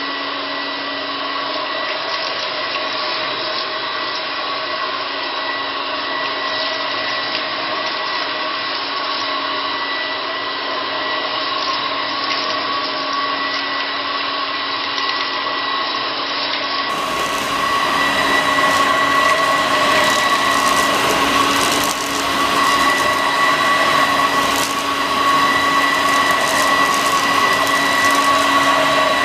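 Home-built bagless cyclonic upright vacuum cleaner running with a steady whine over a rush of air, getting somewhat louder a little over halfway through.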